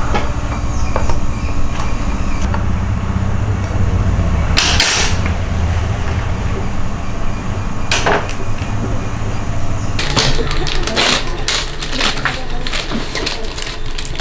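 A low steady mechanical hum with a couple of isolated knocks. From about ten seconds in comes a quick run of sharp metal clinks and knocks from hand tools being worked.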